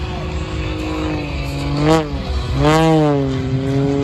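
Red Bull Zivko Edge 540 aerobatic plane's piston engine and propeller droning as it flies aerobatics. Its pitch swings sharply up and back down about halfway through, then rises and falls again a moment later, loudest at those swings, as the plane tumbles and rolls.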